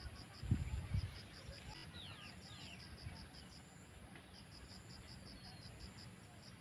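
Insects chirping steadily in a rapid, even pulse, about six pulses a second in runs with short breaks. Two short falling bird whistles come about two seconds in, and a few low thumps come in the first second.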